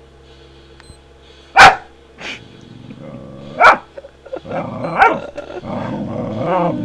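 A dog barks sharply at a beeping stopwatch: a loud bark about a second and a half in, a softer one, and another loud bark near four seconds in, then she growls and grumbles continuously toward the end.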